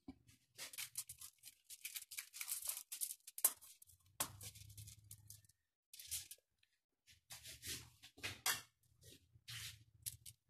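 Aluminium foil crinkling and rustling under hands spreading oil over it and handling a stuffed tilapia on it, in uneven bursts.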